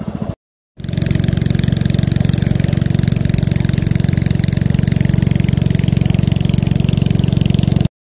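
Small boat motor running steadily at cruising speed, a fast even chugging drone, cut by a brief silent gap just after the start and another at the very end.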